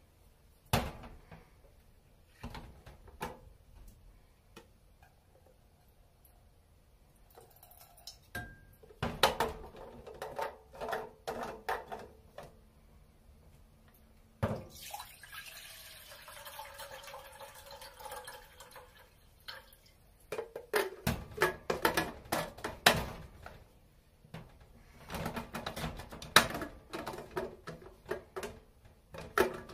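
Plastic clicks and knocks from a clear plastic pitcher and its lid being handled and fitted. About halfway through, liquid is poured into the pitcher for a few seconds.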